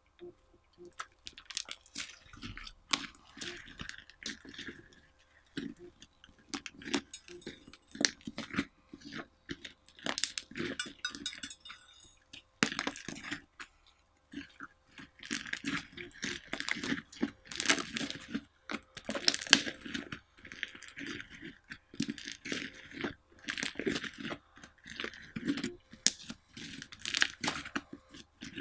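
Slime being worked by hand with mix-ins, giving a dense, irregular run of small clicks, crackles and pops.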